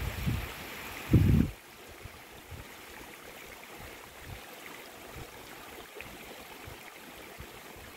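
Boiling geothermal water running over a silica sinter terrace, a faint steady rushing. For the first second and a half, low buffeting on the microphone covers it, with one loud thump about a second in, and then it cuts off.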